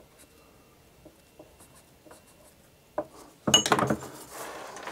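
A pen writing a message on the homemade lure retriever: faint short scratching strokes. About three seconds in there is a sharp knock, then a louder burst of clattering and rubbing as it is handled.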